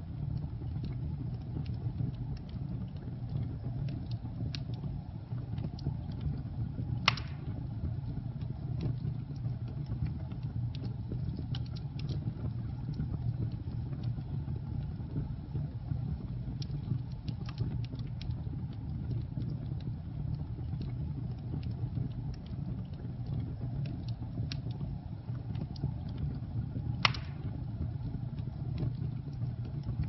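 Log fire burning: a steady low rumble of flames with scattered light crackles, and two louder pops, about seven seconds in and near the end.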